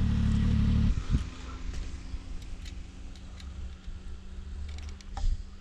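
Snowmobile engine idling, loud and steady for about the first second and then fainter for the rest. Light clicks and a sharper knock about five seconds in come from a tip-up trap being handled.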